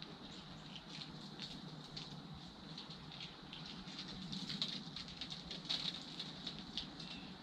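Squirrel eating bird seed at a feeder: irregular light clicks and crunches of seeds and hulls, coming thicker about four seconds in.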